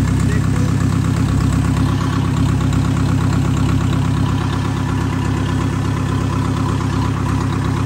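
Tractor engine running steadily at an even pace, with a low, rapid pulse.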